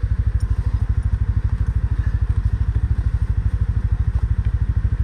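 ATV engine idling with a rapid, even beat.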